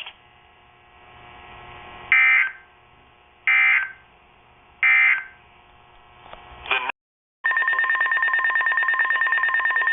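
NOAA Weather Radio SAME data bursts. Three short, shrill digital bursts about a second and a half apart form the end-of-message code closing a severe thunderstorm warning. After a brief cutout, a longer continuous buzzing data signal starts about three quarters of the way through, the header of the next alert.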